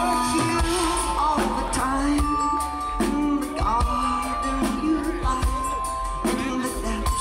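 Live band music: a man singing at the microphone over acoustic guitar, keyboards and drums, with long held keyboard notes and regular drum hits.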